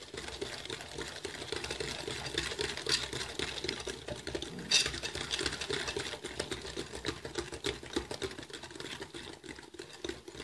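Hand whisk beating a soft batter of creamed ghee, sugar, egg and vanilla in a ceramic bowl: a rapid, continuous clicking of the wires against the bowl with a wet slapping in between.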